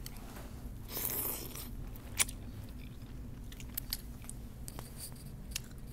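A person eating chicken noodle soup close to the microphone: noodles drawn in with a slurp about a second in, then chewing with a few sharp mouth clicks and smacks.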